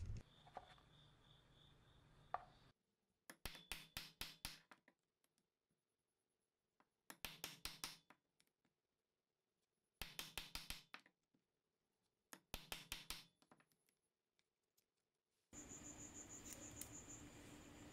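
Four short runs of quick sharp clicks, five to seven clicks in each, with near silence between: a hollow punch being worked through a textured rubber sheet on a cutting mat to cut round pads. A faint steady hiss with a high whine comes in near the end.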